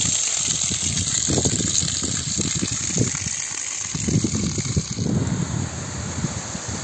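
Running water gushing, with wind buffeting the microphone.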